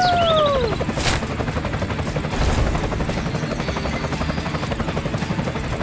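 Small motor of a miniature toy construction machine running with a fast, steady rattling pulse. A falling squeal-like tone opens it, and a single sharp click comes about a second in.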